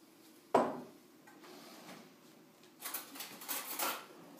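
A single sharp knock about half a second in, then scraping and rustling noise for about a second near the end.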